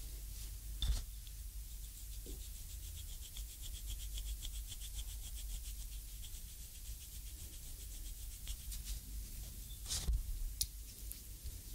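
Thumbs and fingers kneading the oiled sole of a bare foot during reflexology massage: a fast, even run of soft rubbing strokes on skin. A sharper knock comes about a second in and another near the end.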